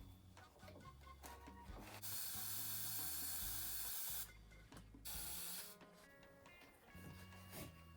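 Two hissing sprays, one about two seconds long and then a shorter one under a second, over background music with a bass line and plucked guitar.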